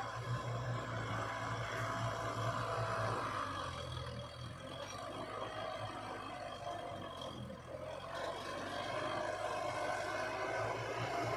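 Heavy diesel construction machinery running with a steady low drone; it eases off for a few seconds in the middle and picks up again.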